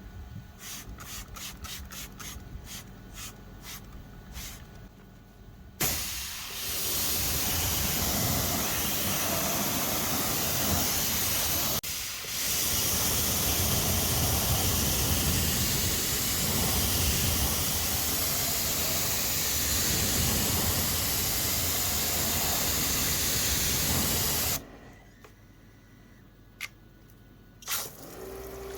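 Pressure washer spraying water: a loud, steady hiss lasting almost twenty seconds, broken once briefly. Light ticking comes before it starts, and a couple of sharp clicks follow after it stops.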